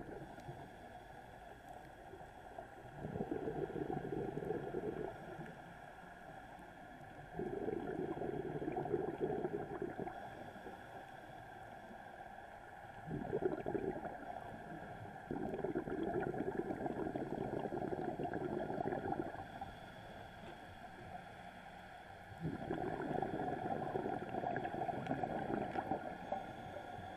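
Scuba diver breathing through a regulator, heard underwater: about five bubbling rumbles of exhaled air, each lasting one to four seconds, with quieter stretches between them.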